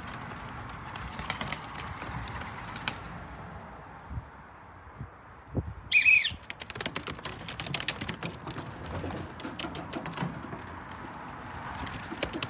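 Racing pigeons flapping and clattering their wings as they take off from the loft roof, with scattered clicks before that. About six seconds in a brief high-pitched squeak is the loudest sound, followed by a second half full of wing flaps.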